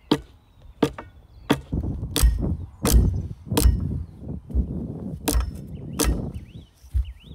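A steel spade chopping down into the ground at the bottom of a post hole. There are about nine sharp strikes, roughly one every 0.7 s, with dirt scraping and crunching between them.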